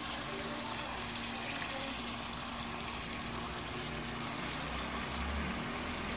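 Soy sauce and calamansi juice simmering in a hot wok with garlic and onions: a steady sizzling hiss with small scattered pops.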